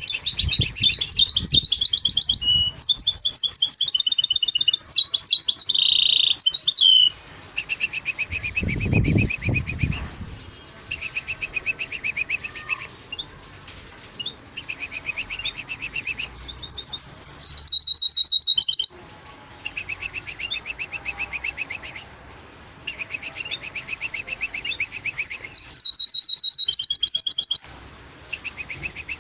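Goldfinch × canary hybrid (bandouk) singing: fast trilled, warbling phrases, loud for the first seven seconds and again in short bursts about 17 and 26 seconds in, with softer repeated trills in between. A brief low rumble comes about nine seconds in.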